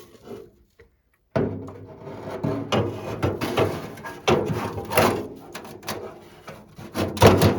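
Close handling noise: a run of knocks, rubbing and clatter that starts abruptly about a second and a half in, after a moment of silence.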